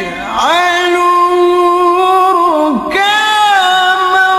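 A man's voice reciting the Quran in melodic tilawah style, holding long high notes with ornamented turns. Twice the voice slides down and swells back into a new held phrase, near the start and about three seconds in.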